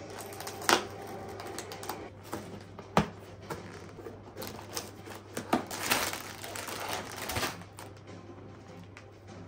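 Irregular sharp clicks and taps of small hard objects being handled, the two loudest about a second in and about three seconds in, with a stretch of crinkly rustling near the end.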